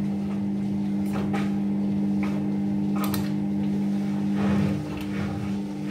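Front-loading washing machine tumbling a load of laundry: a steady motor hum with a few soft, irregular knocks as the clothes fall in the drum.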